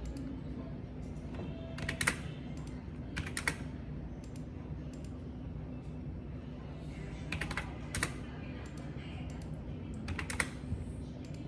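Typing on a computer keyboard in short, scattered bursts of keystrokes, about four little clusters, over a steady low background hum.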